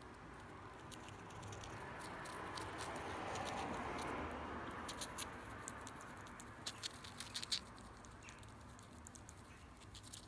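Pet squirrel making a run of small, sharp clicks and scratches, with a soft hiss that swells and fades in the middle.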